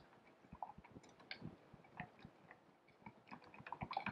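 Whisk stirring thick Greek-yogurt ranch dressing in a stainless steel bowl: faint, irregular wet squelches and light clicks against the bowl, coming faster about three seconds in.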